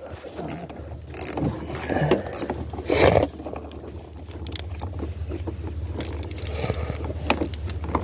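Small wrench clinking and scraping on a car battery terminal bolt as it is loosened to disconnect the battery, with a louder knock about three seconds in and a low steady rumble underneath.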